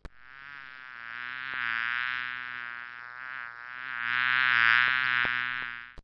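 Bee buzzing in flight, a steady droning buzz that grows louder and softer twice as it passes close by.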